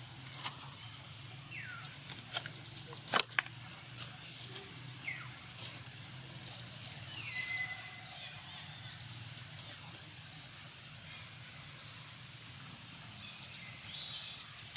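Outdoor natural ambience: short falling bird calls repeat several times, over high pulsed insect-like trills and chirps. A single sharp click comes about three seconds in.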